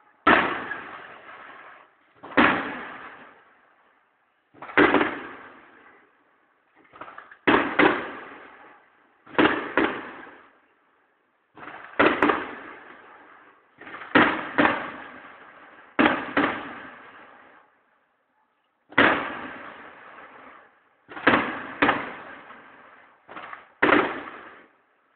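Aerial firework shells bursting overhead: sharp bangs every second or two, some in quick pairs, each trailing off in a rolling echo that fades before the next.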